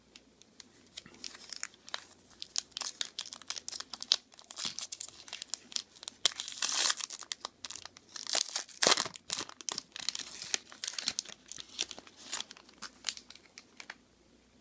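Foil trading-card pack wrapper crinkling and tearing as it is ripped open by hand: a rapid run of crackles starting about a second in, with the loudest rips around the middle, stopping just before the end.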